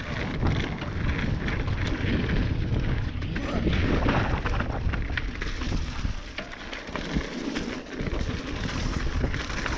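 Mountain bike being ridden on a dirt trail: wind buffeting the camera microphone in a constant rumble, with the tyres and bike rattling in many short clicks.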